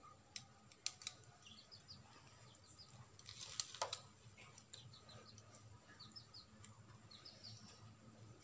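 Scissors snipping through chicken intestine, a few sharp clicks about a second in and a louder cluster of snips near the middle. Faint small birds chirp repeatedly in the background.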